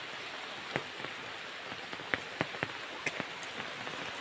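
Steady hiss of rain, with scattered sharper drops striking leaves, a handful of them over the few seconds.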